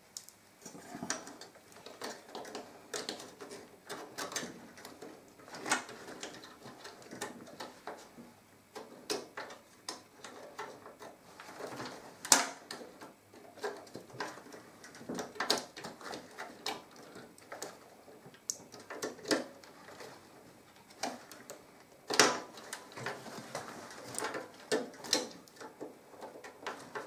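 Rubber-gloved hands handling a DDR3 RAM module and the parts inside an open desktop PC case while trying to seat the module in its slot: irregular small clicks and knocks of plastic and metal with rubbing and rustling, the sharpest knocks about twelve and twenty-two seconds in.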